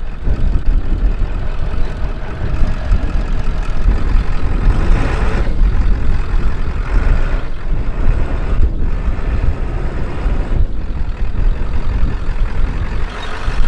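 Ford F350's 7.3 Powerstroke diesel engine running as the truck camper is driven and turned around on a rocky dirt track. A loud, uneven low rumble of wind on the microphone lies under it.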